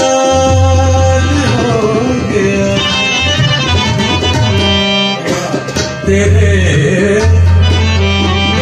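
Live ghazal music: a harmonium and tabla playing, the tabla's bass drum giving deep resonant strokes, with a man singing long held notes.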